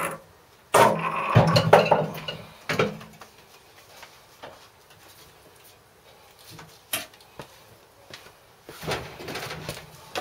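A washing machine drum unit being handled after its removal from the cabinet: several heavy knocks and a scrape in the first two seconds, another knock a little later, then scattered light clicks and a rustle.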